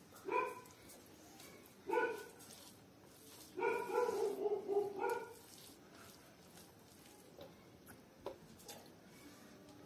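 Dog barking: two short barks a second and a half apart, then a quick run of barks lasting over a second.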